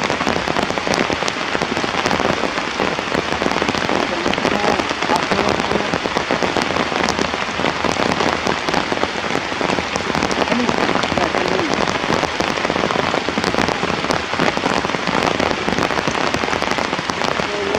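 Steady heavy rain falling and pattering on a surface, with a dense run of drop impacts.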